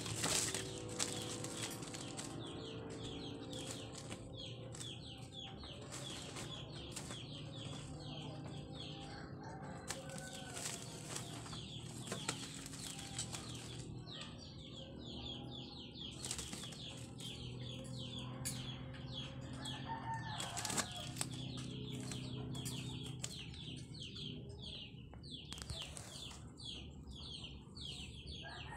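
Plastic tarp rustling and crinkling in bursts as cats scramble and play on it, with quick repeated high chirps of birds and a low steady hum behind.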